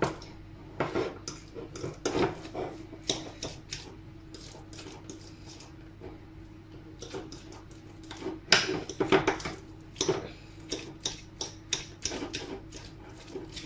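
A fork mashing soft butter with horseradish and pepper on a small plate: irregular clicks and scrapes of the fork against the plate, busiest about eight to nine and a half seconds in.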